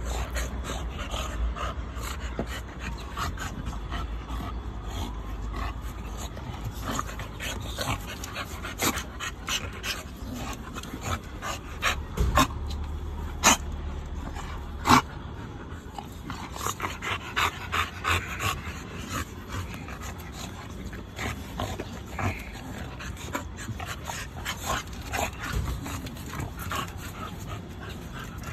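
Pit bulls and an American bully wrestling at close range: steady scuffling and dog breathing and vocal noises, with many short sharp sounds and a few louder ones about halfway through.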